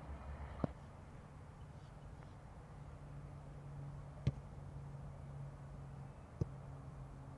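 Three sharp thumps of a football being kicked: one near the start, the loudest about four seconds in, and another near the end, over a steady low hum.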